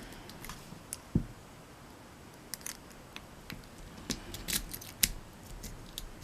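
A key being worked into the keyway of a brass mortise lock cylinder: scattered small metallic clicks and scrapes, with a low knock about a second in and a cluster of clicks near the end.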